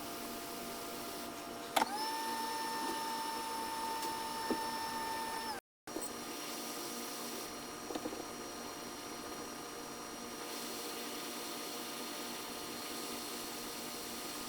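Steady whine of a small electric motor or fan with a fixed tone. About two seconds in, a click starts a higher whine that rises briefly, holds for about four seconds, then cuts off.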